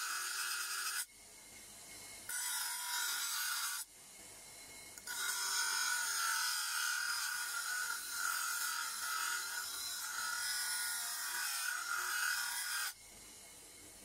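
Workshop tool noise from a tool working on material, in clips that cut in and out abruptly: loud stretches broken by quieter gaps about a second in and near four seconds, and a sharp drop near the end.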